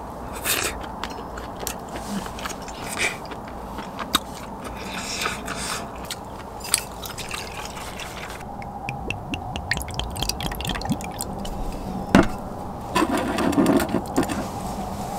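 Chopsticks clicking and scraping against a stainless steel bowl while eating, with one sharp knock about twelve seconds in.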